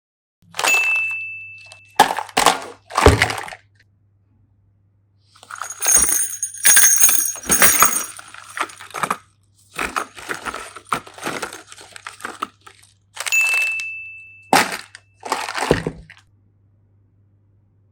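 Kinder Surprise egg unboxing: foil and plastic crinkling, with sharp clicks and cracks of the plastic parts being handled and snapped open. Twice, a short high steady tone sounds over the handling.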